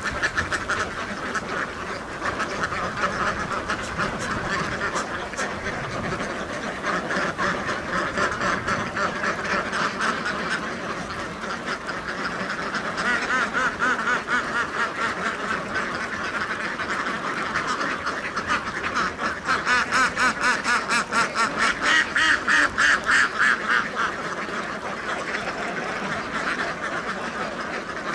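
A large flock of domestic ducks quacking in a dense, continuous chorus. About twenty seconds in, a louder run of quacks comes at about three or four a second for some four seconds.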